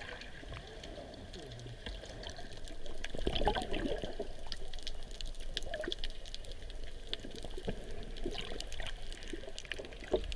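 Underwater sound picked up by a submerged GoPro in its housing: muffled water swishing and bubbling with many small scattered clicks, a little louder around three seconds in.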